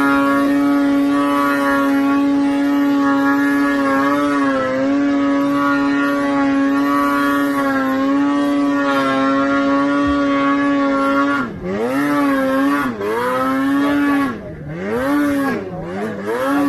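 Snowmobile engine held at high, steady revs for most of the stretch, with brief dips. Near the end the revs drop and climb back several times as the throttle is let off and opened again.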